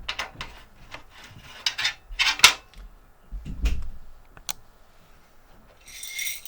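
A hard drive and computer case parts being handled and fitted: a series of clicks and short scrapes, the loudest about two and a half seconds in, with a brief hiss near the end.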